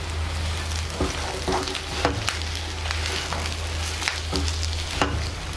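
Stuffed brinjals frying in oil with their masala, a steady sizzle, while a spatula knocks and scrapes against the pan a few times as they are stirred.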